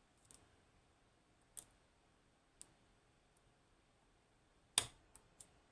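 Small metallic clicks of a lock pick and tension on the pins of an ASSA 600 lock cylinder with green bottle pins, with one much sharper click near the end as a pin sets.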